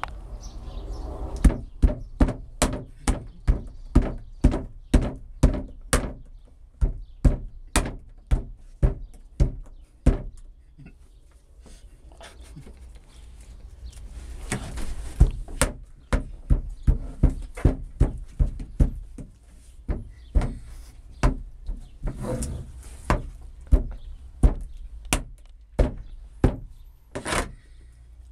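A hammer striking a clay figure on a hollow plastic storage-box lid over and over, about two blows a second, smashing it to pieces. The blows stop for a few seconds near the middle, then resume.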